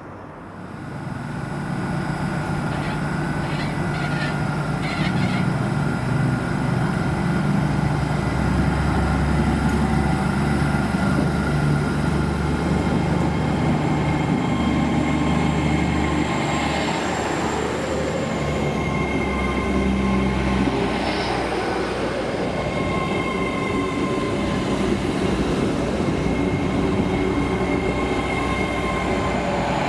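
LNER Azuma Class 800 bi-mode train running on its underfloor diesel engines and moving slowly along the platform: a steady low engine drone with thin electric whines above it. The drone eases about two thirds of the way through.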